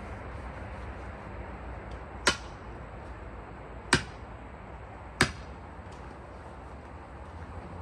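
Sledgehammer tapping a steel splitting wedge into a log round: three sharp strikes over about three seconds, setting the wedge before the full swings.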